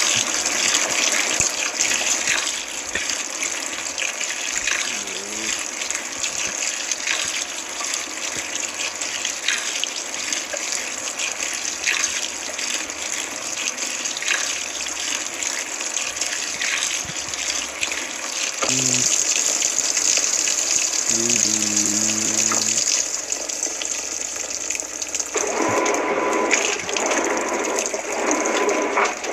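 Washing machine filling with water: a steady rush of water pouring into the drum, changing in character about two-thirds of the way through.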